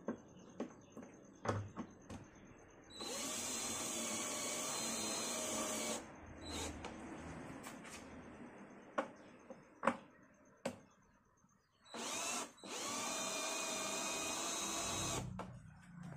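Cordless drill/driver driving screws through a speaker grille into a speaker box. The motor runs twice for about three seconds each, its pitch rising briefly as it spins up, with light clicks and taps between the runs.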